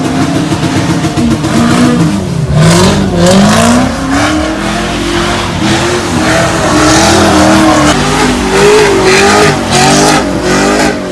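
Loud car engine revving hard over and over, its pitch climbing and dropping in repeated surges.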